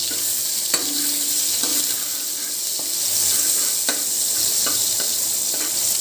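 Minced garlic sizzling in hot oil in a metal wok, a steady hiss, stirred with a metal spoon that clicks against the pan a few times.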